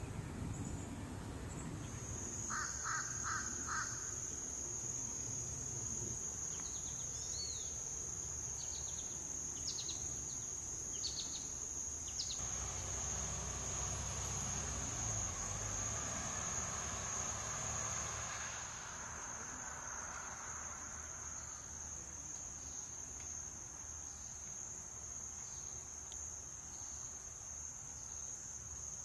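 An insect singing one steady high-pitched note without a break, starting about two seconds in. A few short bird chirps come in the first half, and a soft rushing noise rises and fades for several seconds in the middle.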